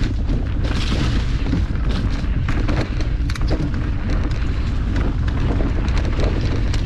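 Wind buffeting the microphone of a moving rider, a steady low rumble, with many sharp clicks and rattles from the ride over rough trail.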